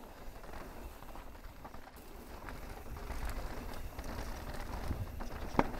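Mountain bike rolling over a dirt and rock trail: a steady rumble of wind on the microphone with scattered clicks and rattles from the tyres and bike, and one sharp knock near the end.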